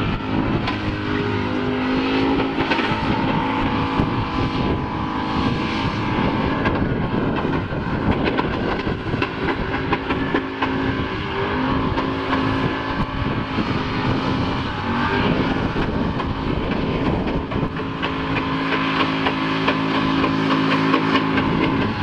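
A car engine running at fairly steady revs while driving, with road and wind noise; its pitch steps to a new level a few times.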